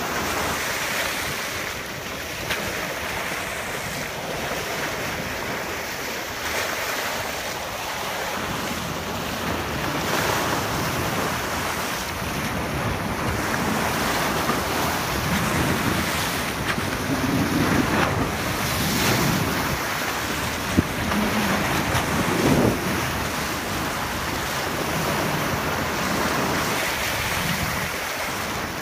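Steady rush of sea water along a moving boat's hull, with wind buffeting the microphone.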